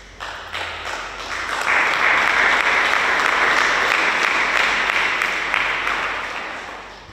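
Congregation applauding, swelling over the first two seconds and dying away near the end.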